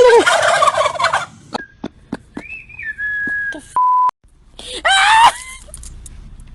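Turkey gobbling, with loud wavering calls at the start and again about five seconds in. Between them come scattered clicks, a rising and then steady whistle-like tone, and a short, loud electronic beep.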